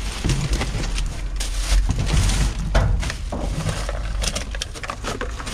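Plastic trash bags crinkling and rustling, with scattered knocks and scrapes as a sheet of OSB board is handled among them.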